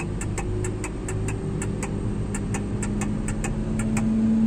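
Oxbo 2485 harvester's engine being throttled up from idle towards about 1200 rpm, its pitch rising slowly and getting louder. A regular ticking about four times a second runs over it and stops near the end.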